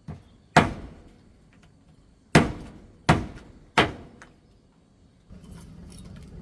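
Four heavy thunks, each fading quickly, about 0.6, 2.3, 3.1 and 3.8 seconds in, after a lighter knock at the start. A steady low rushing noise begins near the end.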